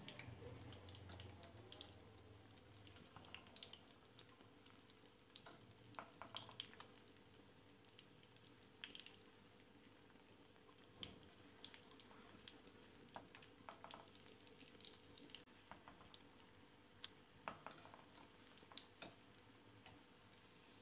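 Breaded chicken-vegetable nuggets shallow-frying in a pan of oil: a faint sizzle with scattered crackles and pops.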